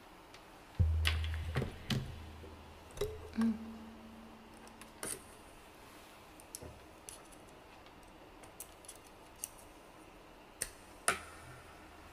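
Clicks and handling noise of a phone being plugged into its charging cable close to the microphone. A low hum comes on suddenly about a second in and fades over a couple of seconds, then returns near the end.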